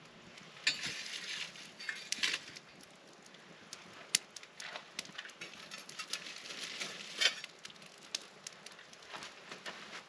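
Wood campfire crackling and popping, with scraping, rustling and clinking as the coals and logs are raked and poked with a metal fire tool, most of it about a second in and again about six seconds in.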